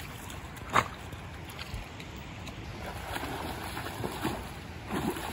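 A dog wading and splashing about in a stream, searching the bottom for a rock, over the steady rush of water and some wind on the microphone.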